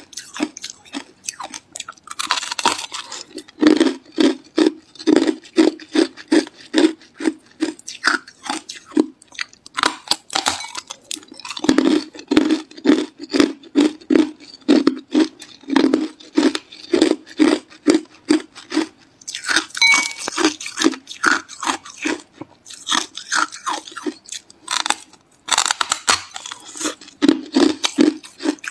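A lump of hard ice being chewed, crunching about three times a second. Every several seconds a louder crackling bite breaks off a fresh piece.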